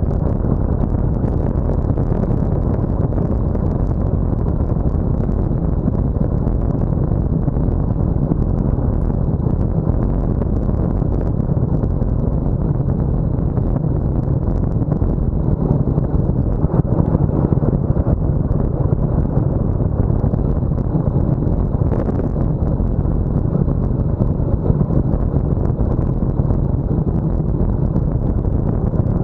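Steady wind rush buffeting the microphone of a bike-mounted camera as the road bike descends at around 45 km/h.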